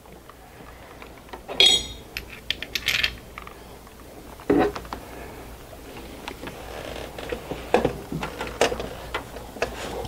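Scattered metallic clinks and knocks as a replacement starter motor is worked down into a Honda Odyssey's engine bay, bumping against engine parts. The loudest is a ringing clink just under two seconds in, with a few duller knocks after it.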